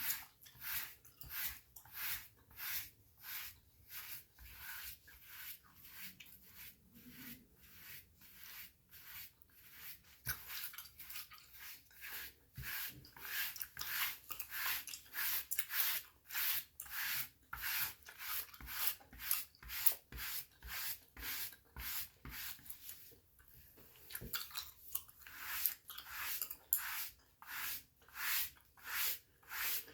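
Dry body brush strokes on bare skin, the bristles scratching in a steady rhythm of about two strokes a second, with a brief pause about three quarters of the way through.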